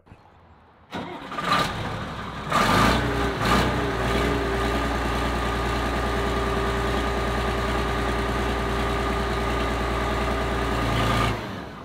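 Air-cooled Deutz six-cylinder diesel of a 1986 Liebherr R942HD excavator starting up: it turns over about a second in, fires with a couple of loud bursts, then settles into a steady idle. It runs now that the fuel shutoff lever is open. The sound cuts off suddenly near the end.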